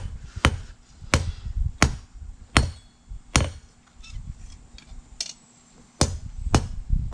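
Hand hammer striking hot steel of a hay-rake tine on an anvil, sharp blows about every 0.7 seconds as the steel is straightened and flattened. Past the middle the blows turn to a few lighter taps and a short pause, then heavy blows resume near the end.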